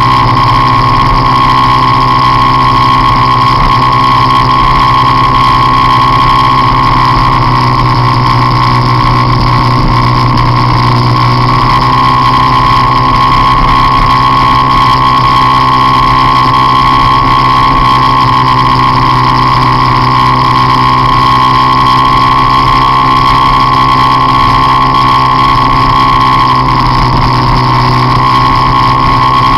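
Peugeot Jetforce Compressor scooter's supercharged 125 cc four-stroke single running loud at high, nearly constant revs while cruising at speed. Its note shifts slightly in pitch a few times but never drops off.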